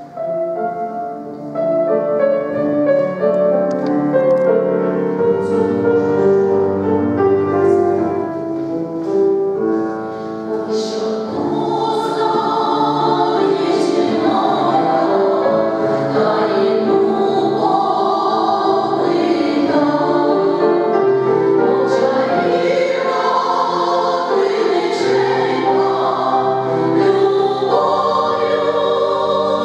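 Women's folk vocal ensemble singing a Ukrainian song together in several voice parts, heard through a stage sound system.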